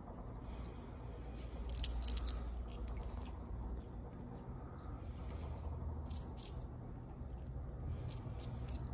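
Common marmoset biting and chewing a small piece of food, with short clusters of crisp, crunchy clicks about 2 seconds in, around 6 seconds and near the end, over a low steady hum.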